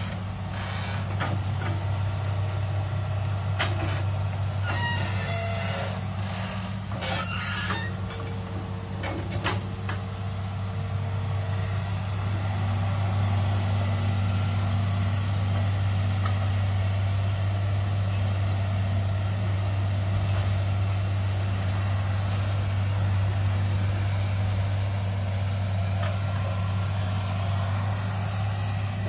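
Tracked hydraulic excavator's diesel engine running steadily under load while digging a ditch, getting a little louder about twelve seconds in. A few short squeaks and knocks come through in the first ten seconds or so.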